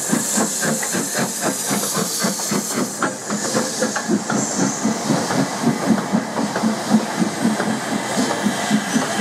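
Two steam locomotives double-heading a train, a Gresley K4 2-6-0 leading an LMS Black Five 4-6-0, working steam with a quick, steady beat of exhaust and hissing steam. The hiss grows sharper about three seconds in, as the second engine comes by.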